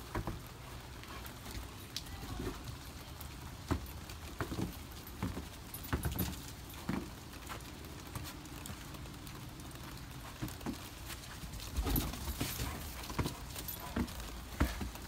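Scattered footsteps and light knocks on a snow-covered wooden deck, spaced irregularly a second or more apart.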